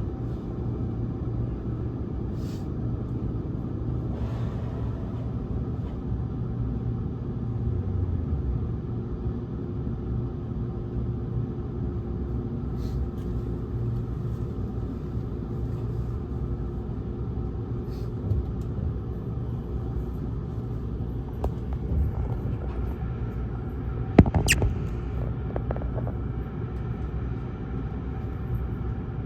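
Steady low rumble and hum inside a 681-series electric train car, with a few faint ticks and one sharp, loud click about 24 seconds in.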